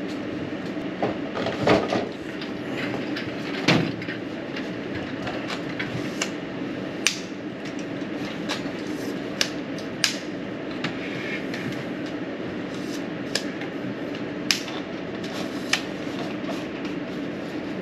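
A steady low hum under about a dozen irregular sharp clicks and knocks of tools and materials being handled.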